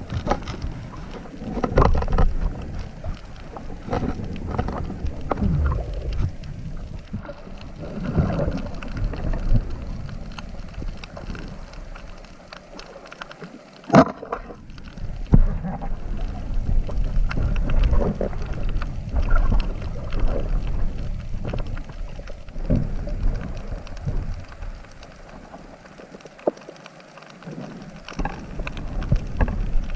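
Water sloshing and churning close to the microphone in irregular swells, with a sharp knock about 14 seconds in.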